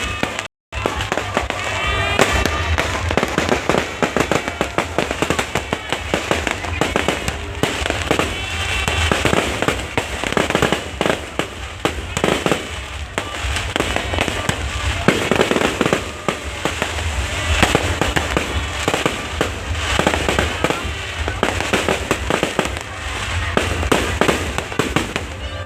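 Fireworks display: a dense, continuous run of bangs and crackling pops, with voices and music mixed in behind. The sound cuts out for a moment just after the start.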